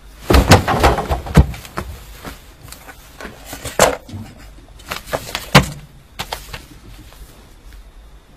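Things being handled and shifted about: a run of knocks, thumps and rustles, densest in the first second and a half and again around four and five and a half seconds in.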